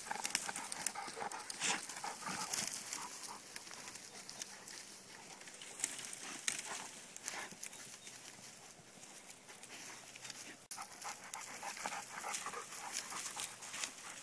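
Leonbergers and a Bernese mountain dog ploughing through a dry bush, with irregular crackling and rustling of snapping twigs and the dogs panting.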